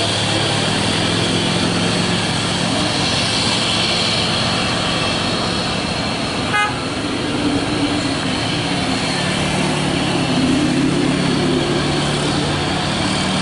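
Truck engines running steadily, with a short horn toot about six and a half seconds in.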